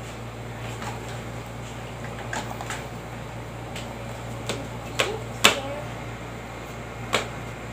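A steady low hum with about six sharp clicks and taps as plastic fake nail tips are handled, the loudest pair about five seconds in.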